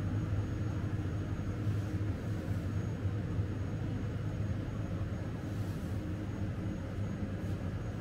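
Steady low machine hum with faint steady tones above it, with a few faint soft ticks scattered through.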